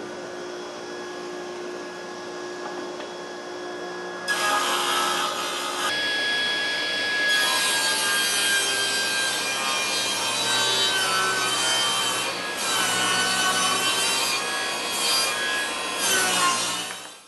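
Table saw blade spinning free for about four seconds, then cutting lengthwise along a wooden board set for a shallow half-inch-deep cut. The blade's whine wavers as the wood is fed through, and the sound falls away sharply at the very end.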